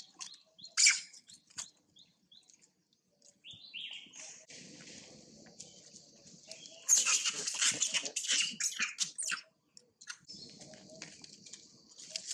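Long-tailed macaques squealing and screeching, with short shrill cries about a second in and near four seconds, then a loud run of screams from about seven to nine and a half seconds in.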